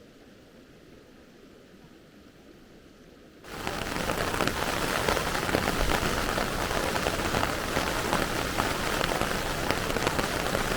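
Heavy rain hitting a surface close by, a dense hiss full of small drop ticks, starting suddenly about three and a half seconds in after a faint quiet hiss.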